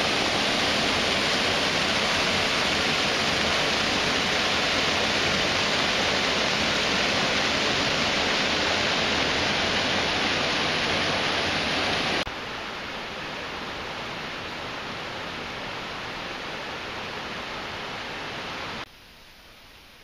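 Water pouring over a small man-made dam spillway into a creek: a steady rush of falling water. About twelve seconds in it drops suddenly to a quieter rush, and near the end it drops again to a faint hiss.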